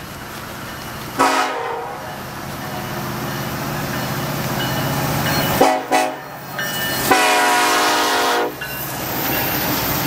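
Horn of the approaching CN freight train's lead locomotive, an SD70M-2, sounded three times: a blast of under a second about a second in, a short toot near the middle, and a longer blast of about a second and a half. Under the horn, the diesel locomotives' rumble grows louder as the train nears.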